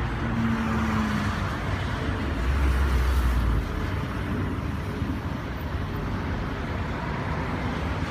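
Steady road-traffic noise, with a heavier low rumble from about two and a half to three and a half seconds in, like a large vehicle passing.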